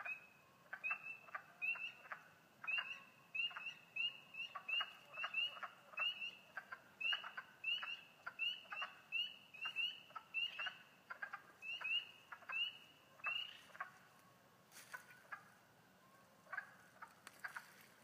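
A chorus of frogs calling: short, rising peeps repeated about twice a second, thinning out to a few scattered calls for the last few seconds.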